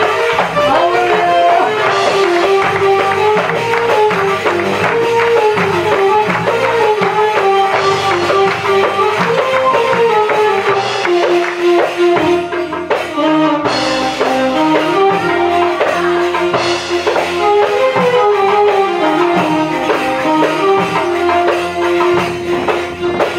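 Live Arabic dance music: an electronic keyboard playing an ornamented melody over steady hand-drum and tambourine-like percussion.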